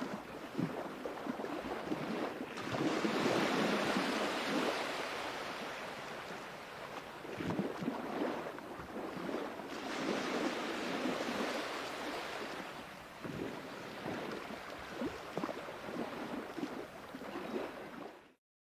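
Sea waves breaking and washing in, the surf swelling up loudly twice and easing back between, before the sound cuts out abruptly near the end.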